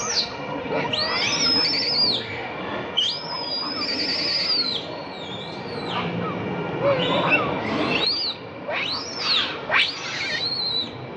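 An infant macaque crying: a string of high-pitched squealing calls that rise and fall, some drawn out and wavering for a second or more, others short.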